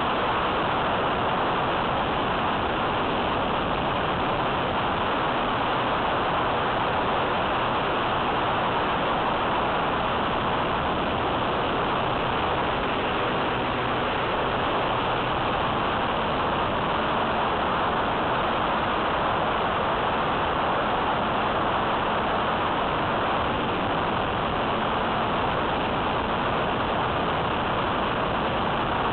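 Steady rush of wind over the microphone of a mini camera mounted on a flying E-flite Apprentice S15e, mixed with the plane's electric motor and propeller running at a constant level.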